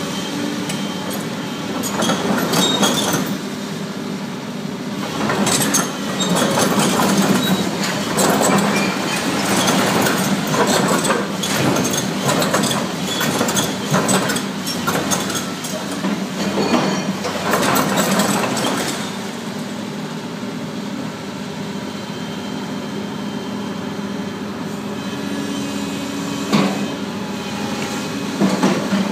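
Doosan DX300LC excavator's diesel engine running steadily under load while its demolition attachment tears into a brick building, with masonry and concrete cracking and crashing down again and again. After a long stretch of crashing the breaking stops and the engine runs on alone, with one or two more crashes near the end.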